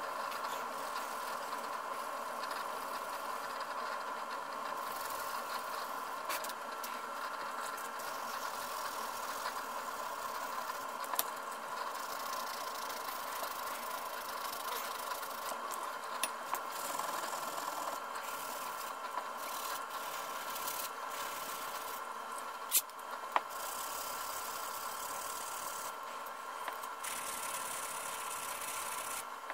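Sanding sponge rubbed by hand over a dark-stained wooden gunstock, a continuous scratchy rasp over a steady hum, with a few light knocks. The stock is being sanded back to remove light glue marks along the wire inlay.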